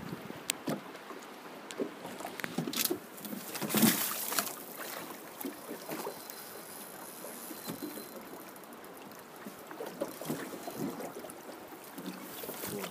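Water splashing and lapping at the side of a drifting boat while a hooked brown trout is played alongside, with scattered knocks and one loud splash about four seconds in.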